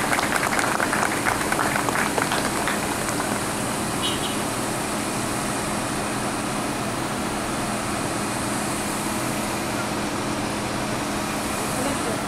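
Steady sound of several car engines idling, a low even hum with no change in pitch. A patter of clapping fades out over the first couple of seconds.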